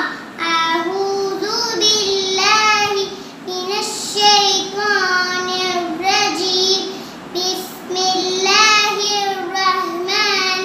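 A young girl's voice reciting in a sing-song chant, phrase after phrase with short breaths between.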